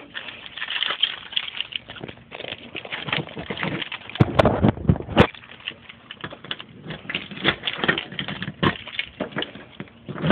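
An excited dog moving about, making a fast, irregular patter of clicks and scuffles, with a few louder knocks about four seconds in.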